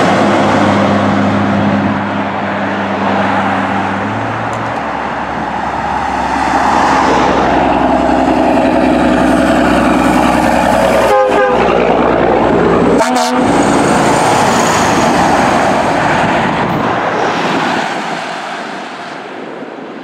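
Heavy diesel trucks passing close by. First a rear-loader garbage truck's engine runs steadily as it goes past and away. Then a long-hood semi truck comes up and passes loudly with engine and tyre noise, fading near the end.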